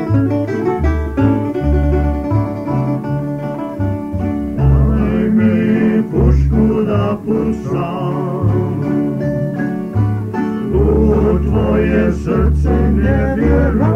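A Croatian song played by a plucked-string band over a bass line; a singing voice comes in about five seconds in.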